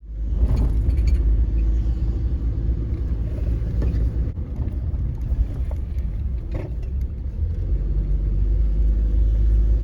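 Steady low rumble of a car on the move, heard from inside the cabin, with a few light knocks.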